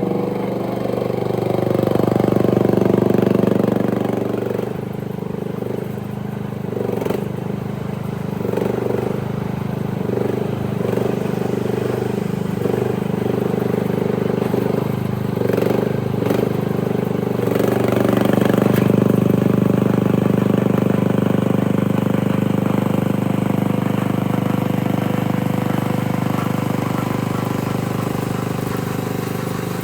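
Dig Master DM100 mini excavator's small engine running continuously. For a stretch its note swells and drops again about once a second, a dozen times or so, as it comes under load, then it settles into steady running.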